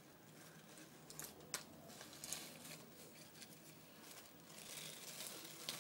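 Faint crinkling and rustling of a thin plastic bag being handled by a small child's hands, in irregular patches, with one sharp click about one and a half seconds in.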